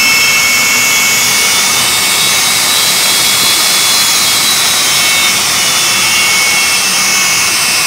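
Jet engine of the Aftershock jet fire truck running in place before launch: a loud, steady high whine over a rushing hiss, one tone rising a little and falling back midway.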